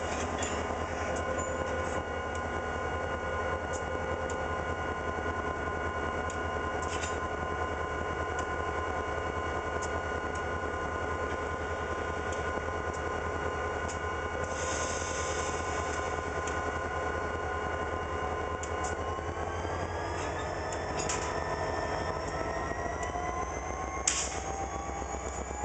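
CSX diesel-electric road-switcher locomotive running with a steady low rumble and whine, then throttling up about two-thirds of the way in, its whine rising steadily in pitch. A few sharp metallic knocks sound over it, one near the end.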